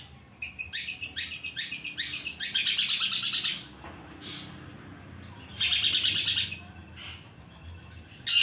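Caged long-tailed shrike (cendet) singing in several fast, chattering phrases of high notes, with short pauses between them.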